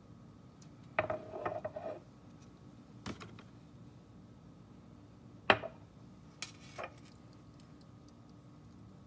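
A ceramic mug and a utensil being handled on a countertop: clinks with a short ringing about a second in, a light knock, then the loudest sharp knock about five and a half seconds in as the mug is set down, followed by two lighter clatters.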